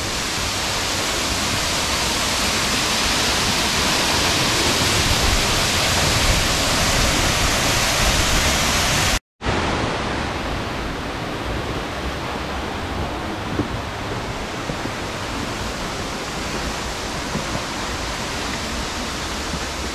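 Steady rush of a small waterfall pouring into a pool. About nine seconds in, the sound cuts out for a moment and comes back as a slightly duller, steady rush.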